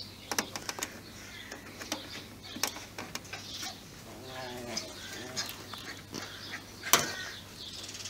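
Scattered clicks and light knocks of multimeter test probes and leads being handled and set against terminals, the sharpest about seven seconds in, with birds calling faintly in the background.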